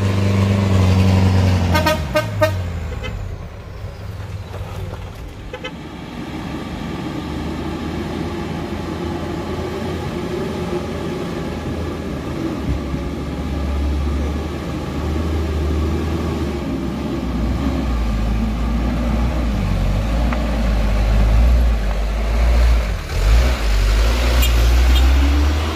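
Diesel engine of a Mitsubishi Fuso Colt Diesel light truck labouring up a steep dirt climb. Its note drops about two seconds in, with a few short horn toots, and then a heavy, low diesel drone builds and runs loud under load as a truck comes up the slope.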